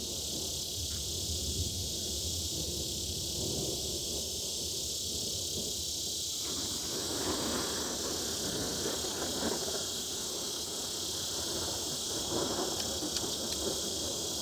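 Cicada chorus: a steady, high-pitched buzz that holds unbroken, with a low rumble underneath that swells in the second half.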